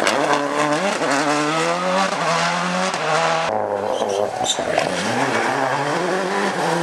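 A Citroën Xsara WRC rally car accelerating hard out of a hairpin, its engine note climbing and dropping through the gear changes. About three and a half seconds in, the sound switches to a Ford Focus WRC accelerating through a bend, rising in pitch again as it goes up through the gears.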